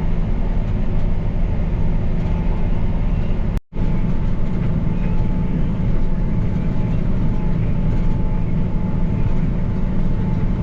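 Farm tractor engine running steadily under load while pulling a disc harrow through dry ground. The sound drops out for an instant a little under four seconds in.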